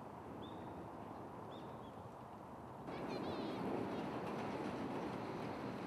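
Steady hum of distant road traffic with a few short bird calls over it. About halfway through the traffic noise suddenly becomes louder, and a quick run of bird chirps follows.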